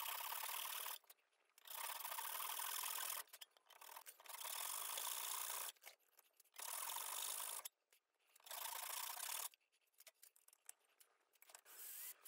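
A hand file rasping across a wooden handle block clamped in a vise, in about six long strokes with short pauses between. Right at the end a cordless drill starts up with a rising whine.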